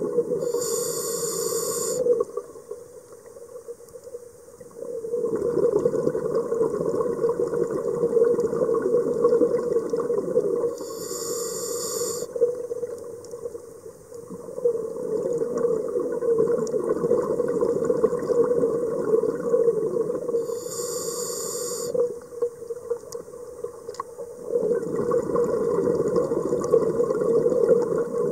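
Slow scuba breathing through an open-circuit regulator: a short hiss as the regulator delivers air on each inhale, three times about ten seconds apart, each followed by a long rush of exhaled bubbles.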